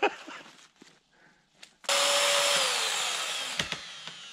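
About two seconds in, a chainsaw cuts in loud at high revs. After a moment its pitch falls steadily and it slowly gets quieter.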